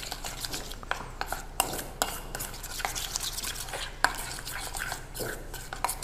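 Brisk stirring of a thick Nutella-and-yogurt mix in a stainless steel bowl, the utensil scraping and clicking irregularly against the metal.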